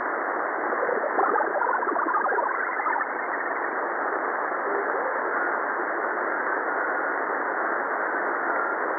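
Tecsun PL-880 shortwave receiver in lower-sideband mode giving a steady hiss of band noise as it is tuned up through the 80-metre amateur band. Brief fragments of sideband voices come through between about one and three seconds in, and faint steady whistles later.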